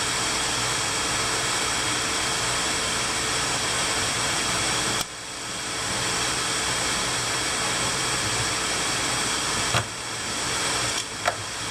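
Steady hiss-like background noise that cuts out abruptly and builds back twice. There is a short click near the end.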